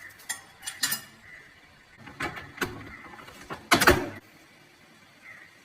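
Plastic clicks and knocks from handling and fitting a toilet seat and lid on a ceramic toilet, a few light taps followed by one louder knock near four seconds in.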